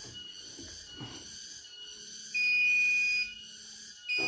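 Electronic beep from the CNY E900 embroidery machine's buzzer: one steady high beep lasting about a second, a little past the middle, and a short second beep near the end.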